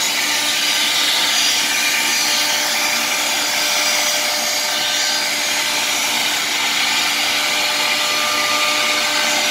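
M1325K3 CNC router's spindle cutting a wood-grain laminated board, with its dust extraction running: a steady machine noise with a constant whine that holds even throughout.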